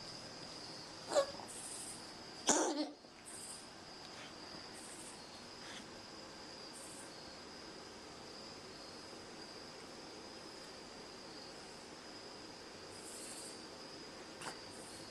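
A cat coughing: one short cough about a second in, then a longer cough at about two and a half seconds, over a steady high-pitched whine.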